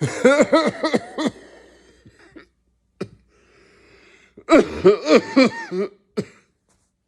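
A person coughing in two bouts of rapid, voiced coughs, each about a second long. The second bout comes about four and a half seconds in.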